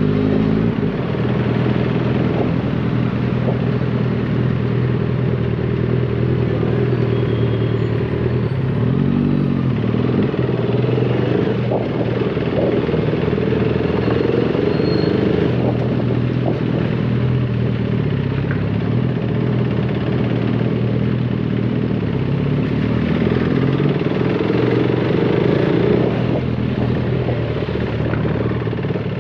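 Motorcycle engine running while ridden at low speed, heard from on the bike, with brief rises and falls in revs at the start and about nine seconds in.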